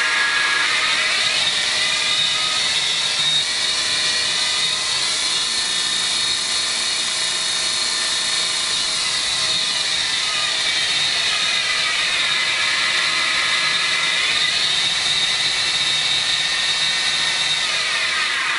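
Small G6 belt grinder running on a frequency converter. Its motor and belt give a loud whine that shifts in pitch as the speed knob is turned, dipping and climbing back about twelve seconds in and sliding down near the end. The noise has a metallic beat, which the owner puts down to the belt joint striking the bare metal wheels, with no rubber or polyurethane on them.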